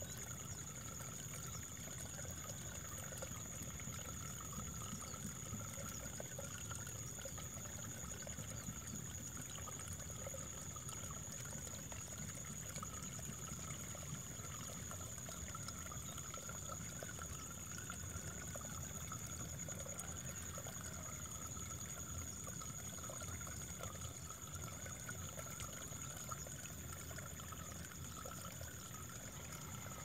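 Running water flowing steadily, with no breaks, and a thin, steady high-pitched whine above it.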